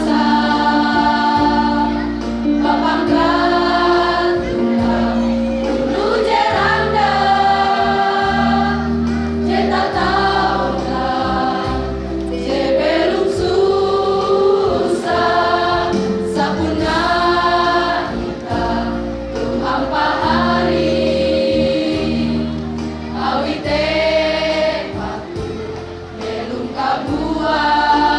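High school choir singing a song in parts, in phrases of a few seconds each over held low notes.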